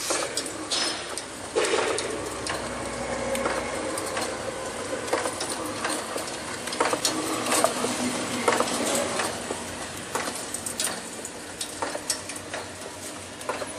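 APF-200 hamburger patty forming machine running, turning out patties onto its wire-mesh conveyor: a steady mechanical noise with irregular clicks and knocks throughout.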